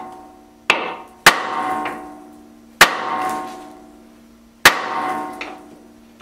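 A 2-pound hammer striking a hollow steel drift to drive out a forklift tilt-cylinder pivot pin: four metallic blows at uneven intervals, each ringing on for a second or more. The pin is hesitant and not yet moving.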